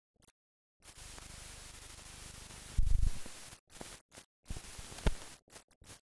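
Static-like hiss and crackle of an old film soundtrack, cutting in and out in patches, with a loud low thump about three seconds in and a sharp pop just after five seconds.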